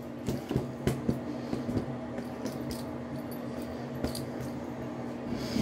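Hands being rubbed dry in a cloth towel, soft rustling with a few light clicks, mostly in the first two seconds, over the steady hum and hiss of a tap left running.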